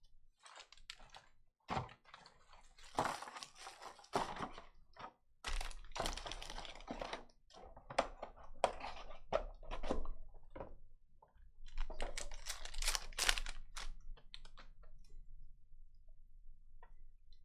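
Foil trading-card pack wrappers being torn open and crinkled by hand: irregular crackling rustles that come in several bunches, with quiet gaps between.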